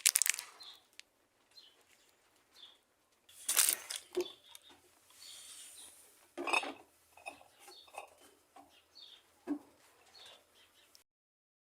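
Light metal clinks and a few sharper knocks from steel washing-machine parts being handled, as a 6205 RS ball bearing is fitted into its seat in the transmission plate. The sound cuts off abruptly near the end.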